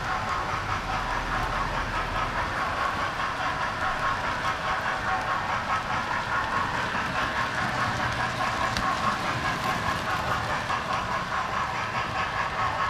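Model railway train running steadily along its track, heard from on board the train: an even running noise of wheels and mechanism on the rails.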